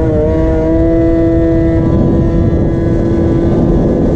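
The Minarelli two-stroke engine of a tuned MBK Booster scooter, held at steady high revs under throttle. Its pitch stays level, and the topmost overtone fades about two seconds in.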